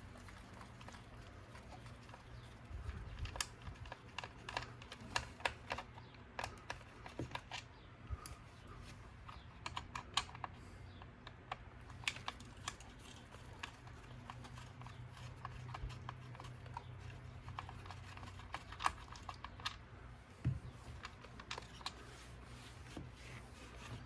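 Scattered light clicks and taps of small tools and hard plastic parts being handled while the screws are backed out and the plastic nerf bars are unclipped from an RC truck's chassis, over a low steady hum.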